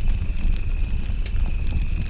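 Campfire crackling with scattered sharp pops over a low steady rumble, while crickets chirp in a steady high trill.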